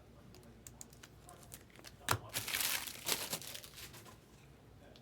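Foil wrapper of a trading-card pack crinkled and torn open, with a sharp snap about two seconds in and a second and a half of crinkling after it.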